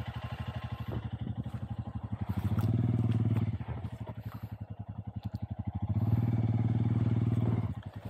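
Motorcycle engine running at a low, pulsing idle, opened up twice for a second or so, about two and a half seconds in and again about six seconds in, as the bike is eased slowly through wet sand at a shallow river crossing.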